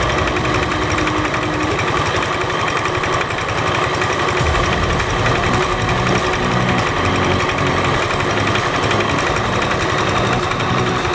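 Diesel engine of an irrigation water pump running steadily with a fast, hard knocking beat.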